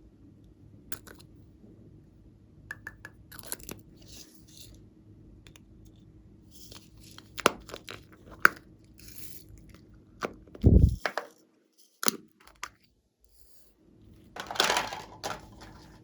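Scattered clicks, crinkles and rustles of plastic packaging and containers being handled, with a low thump about two-thirds of the way through and a longer burst of crinkling near the end.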